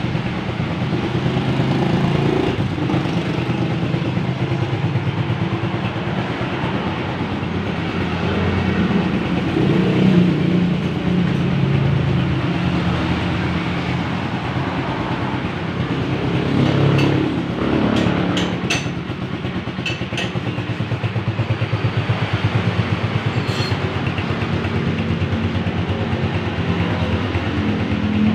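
Racal 150 enduro motorcycle's engine idling steadily, rising briefly about ten seconds in and again about seventeen seconds in. A few sharp clicks come near the middle.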